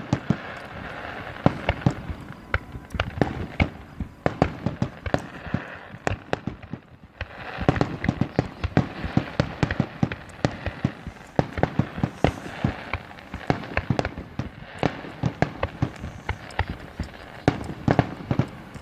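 Fireworks going off in quick succession: a dense run of bangs and crackles, several a second, easing briefly about seven seconds in before picking up again.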